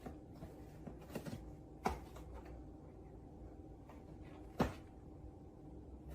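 A few light knocks or clicks over a faint, steady hum, the clearest about two seconds in and again after four and a half seconds.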